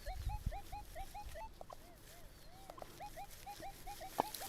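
Metal detector's audio response: a faint, rapid run of short chirping beeps, about four a second, whose pitch wavers and arcs as the coil passes over a weak target signal. A few low thumps come at the start and a single click comes near the end.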